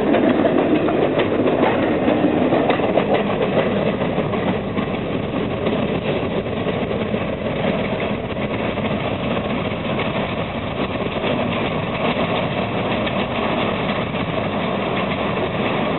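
Diesel-hauled freight train's cars rolling away on the rails, the wheel noise easing after the first few seconds, over a steady engine rumble.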